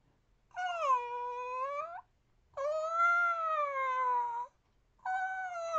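Human voice imitating whale song: three long pitched calls with short gaps between them. The first dips and then rises at its end, the second rises and then sinks, and the third starts about five seconds in.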